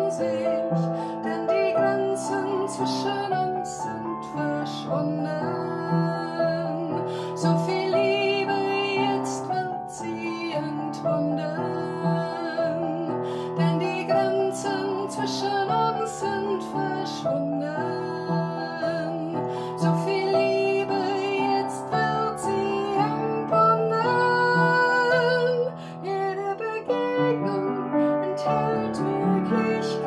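A woman singing a German song with vibrato, accompanying herself on an upright piano.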